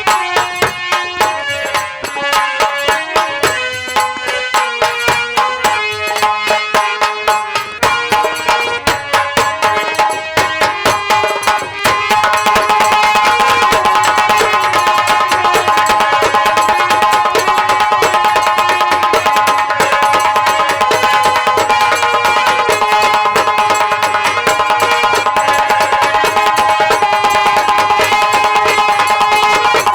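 Live Indian folk instrumental music: tabla-style hand drumming under a melody instrument. About twelve seconds in it turns louder and denser, with long held notes over rapid drumming.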